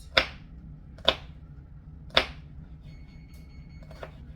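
Kitchen knife chopping a jalapeño on a cutting board: three sharp strikes about a second apart. A faint steady high tone sounds near the end.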